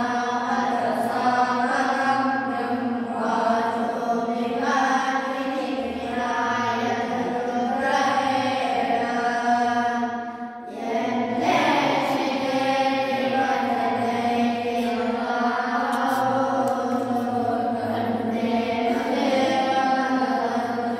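A group of boys chanting mantras together in unison, with one short break for breath about halfway through.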